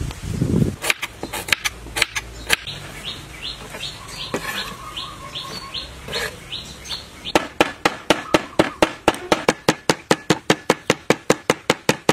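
A bird chirping in a quick series of short, falling calls. Then, from about seven seconds in, a cleaver chops garlic on a cutting board in a rapid, even rhythm of sharp knocks.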